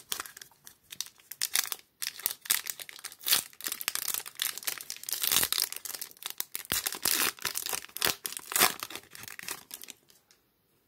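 Foil wrapper of a Topps Mini baseball card pack being torn open and crinkled by hand, an irregular crackling that stops about a second before the end as the cards are pulled out.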